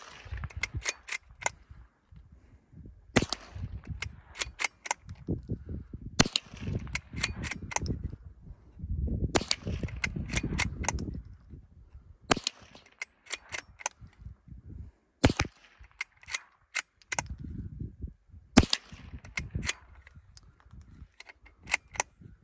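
A Christensen Arms Ranger 22 rifle firing Blazer .22 LR standard-velocity rounds, one sharp shot about every three seconds, about seven in all. Each shot is followed by a short trail of fainter echoes.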